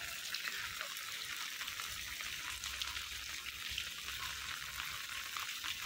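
Heavy rain falling on wet pavement, a steady hiss.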